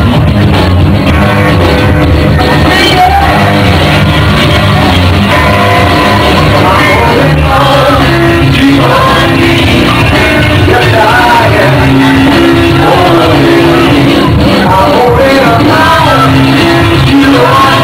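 Loud rock music with a singing voice over a steady band mix.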